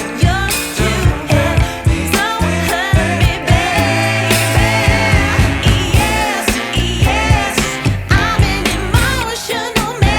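Pop dance song with a sung vocal and a heavy, fast bass beat, played loud through the Blizzard Audio 'horeg' sound system.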